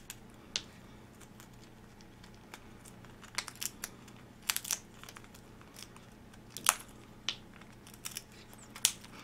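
A white-bellied caique chewing and shredding a piece of yucca wood with its beak: irregular sharp cracks and crunches of splintering wood, some in quick clusters, over a faint steady low hum.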